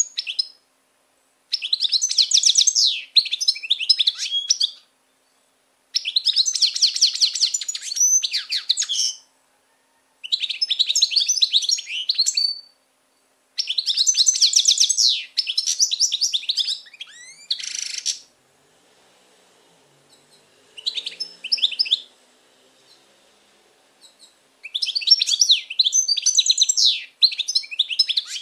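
European goldfinch singing in a cage: rapid, high twittering song phrases a few seconds long, broken by short pauses, with a longer lull past the middle interrupted by one brief phrase.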